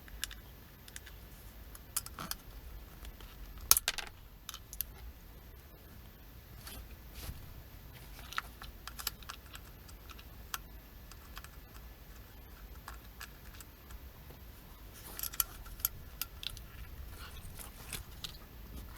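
Scattered light clicks and clinks of tools, screws and small parts being handled while working on a motorcycle's rear fender, with one sharper click about four seconds in and a quick run of clicks near the end.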